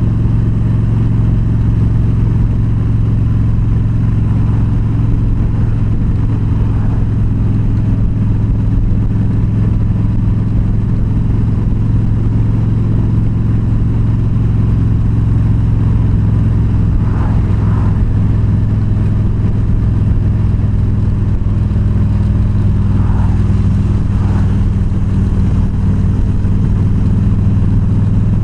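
Yamaha V-Star 1300's V-twin engine running steadily at cruising speed while the motorcycle is ridden along the road.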